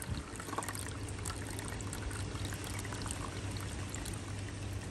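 Water pouring steadily from a plastic bottle into a burping funnel's pool of coolant, splashing and bubbling, as the cooling system is topped up with water. A steady low hum runs underneath.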